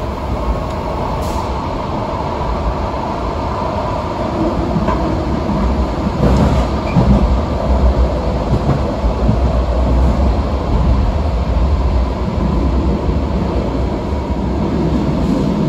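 Rheinbahn Stadtbahn light-rail car running through a tunnel, heard from inside the cab: a continuous rumble of wheels on rail with a thin steady whine above it, the rumble growing louder for a few seconds around the middle.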